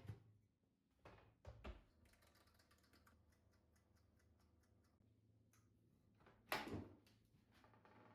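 Soft knocks and clatters of things being handled, with a run of small, quick clicks in the middle and one louder knock near the end.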